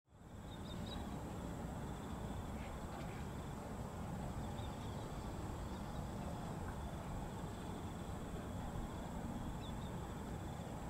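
Steady low rumble of a distant Boeing 737-800's CFM56 turbofan engines as it touches down, with insects chirping steadily and a few short bird chirps over it.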